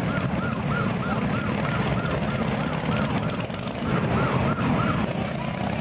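A siren yelping in quick rising-and-falling sweeps, about three a second, over the low running of passing motorcycle engines; the siren stops about five seconds in.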